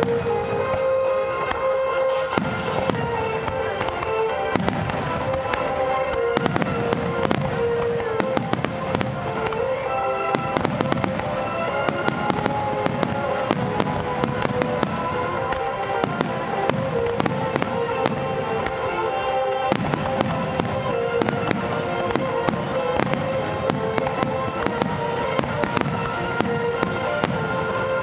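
Finale barrage of aerial firework shells: a dense run of rapid bangs and crackling with no real pause, thickest in the second half. Music with held notes plays alongside.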